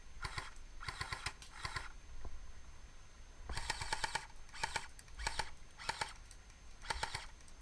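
Airsoft guns firing about eight short full-auto bursts, each a quick rattle of shots, with a pause of about a second and a half near the middle.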